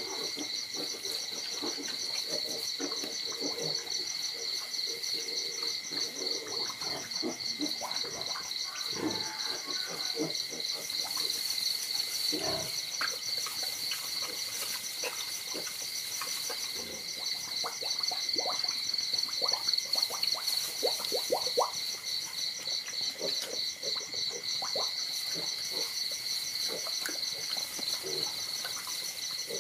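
A steady night chorus of high-pitched, rapidly pulsing trills, with short scuffling sounds from puppies jostling on a concrete floor; the scuffling is busiest about two-thirds of the way through.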